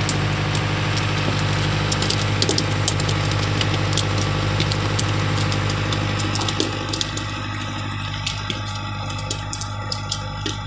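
Fishing boat's engine running steadily at idle, a constant low hum. Scattered sharp clicks and taps sit on top of it.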